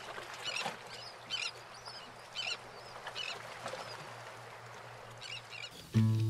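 Sea surf washing on rocks, with birds calling over it about once a second. Acoustic guitar music comes in near the end.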